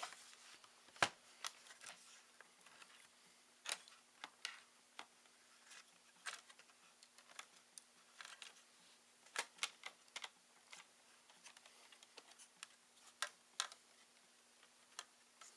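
Scattered light clicks and taps of plastic and small metal parts being handled while a ThinkPad T61 laptop is taken apart, irregular and about one or two a second, over a faint steady hum.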